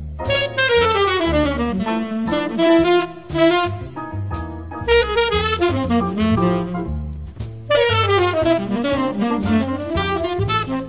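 Whitehall tenor saxophone playing a fast jazz solo, with quick runs of notes that sweep down and back up in pitch, over a jazz backing with a low bass line.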